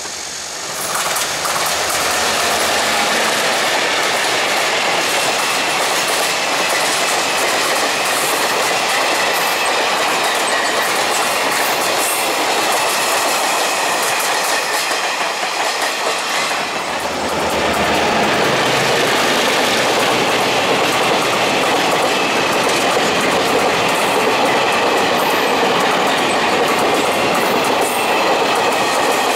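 Taiwan Railways freight train hauled by two R20-class diesel-electric locomotives passing, with its wagon wheels clattering over the rail joints. The sound swells about a second in and changes character again a little past halfway.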